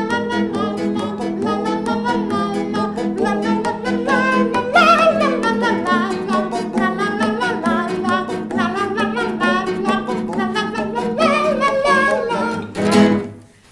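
Two nylon-string classical guitars strumming a two-chord accompaniment in E major (E and B7) while two men sing the chorus together: a repeated 'pop pop pop' men's part under a higher sung melody. The playing stops abruptly near the end.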